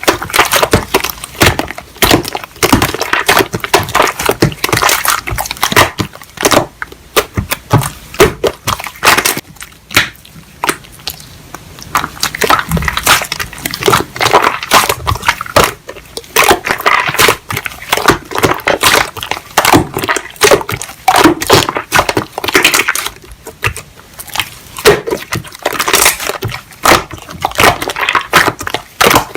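Slime being squished and pressed by hand, with dense crackling and popping clicks.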